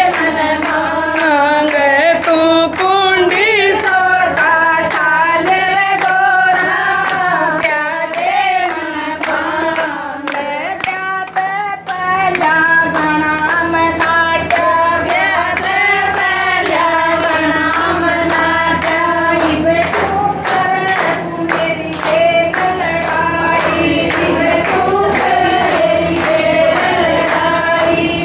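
A group of women singing a devotional folk song together, keeping time with steady hand-clapping on the beat; the singing thins out briefly about ten seconds in, then carries on.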